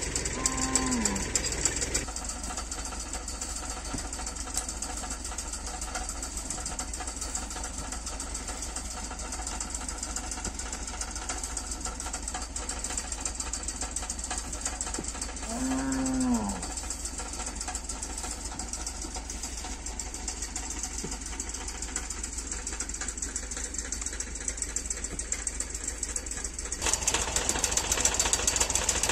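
Cattle mooing twice, once about a second in and again around the middle, over a steady engine drone. The background changes abruptly about two seconds in and again near the end.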